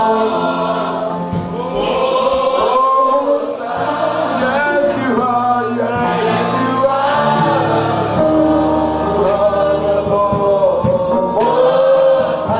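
Gospel worship song sung by a male lead singer with a group of women backing singers, slow sustained singing over low held notes.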